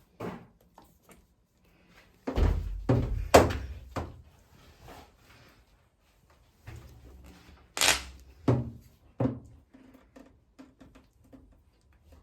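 A series of knocks and thuds from things being handled, the heaviest ones about two to four seconds in and again around eight to nine seconds in, with lighter taps between.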